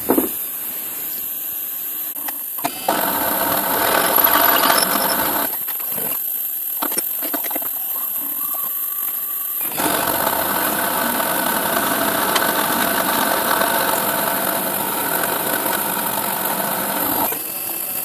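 CNC milling machine cutting into a metal plate with a small cutter: a steady high spindle whine, with cutting noise that thickens about three seconds in and again about ten seconds in, then stops shortly before the end.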